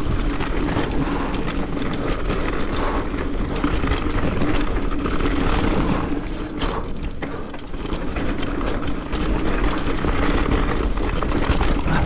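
Marin Rift Zone 3 mountain bike descending a dirt forest trail at speed: steady wind buffeting on the action camera's microphone over the rumble of tyres on dirt, with frequent knocks and rattles from the bike as it hits bumps and roots. The noise eases briefly a little past halfway, then picks up again.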